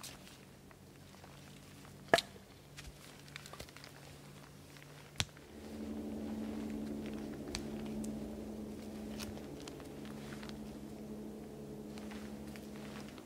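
Two sharp wooden knocks about three seconds apart, the first the louder, of a bushcraft knife being struck with a baton to split wood. About halfway through a steady low hum sets in, with a few faint clicks.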